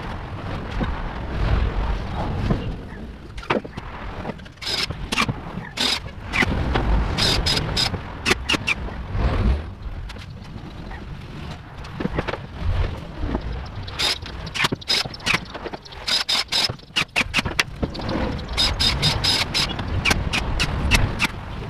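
Irregular knocks, clatters and scrapes of particleboard cabinet panels being handled and fastened together, with a cordless drill at times.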